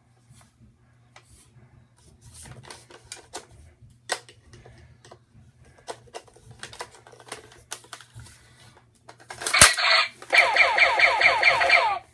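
Plastic toy blaster being reloaded by hand: light clicks and rattles of the plastic magazine and parts, then a loud snap near the end followed by a rapid run of clicks, about six a second, for about two seconds.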